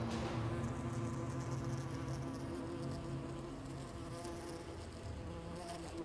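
A housefly buzzing, its hum wavering in pitch and growing a little fainter toward the end.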